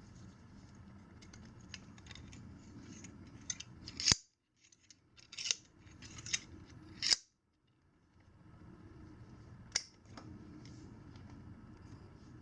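Pliers and cutters working safety wire at a motorcycle chain's master link: a series of sharp metallic snips and clicks, the loudest about four, five and a half and seven seconds in.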